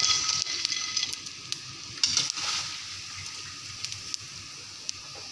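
Hot oil sizzling steadily around papad deep-frying in a kadai, with light clicks and rattles as the crisp fried pieces are scooped out and dropped onto a plate. The sizzle swells louder at the start and again about two seconds in.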